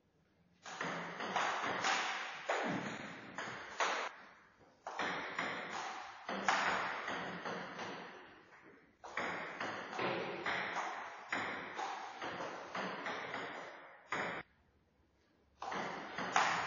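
Table tennis rallies: the ball clicks back and forth between the paddles and the table in quick strokes that ring on in a bare, echoing room. Several rallies follow each other with short pauses between them, the longest a little before the end.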